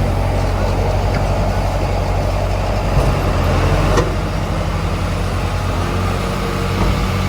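Heavy diesel engine running steadily at a low, even note, with a short sharp clank about three seconds in and another about four seconds in.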